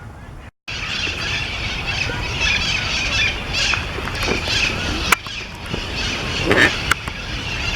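A flock of cherry-headed conures (red-masked parakeets) chattering and squawking in roost trees, many overlapping high calls with a few louder squawks standing out, over a low steady rumble. The sound cuts in after a brief gap about half a second in.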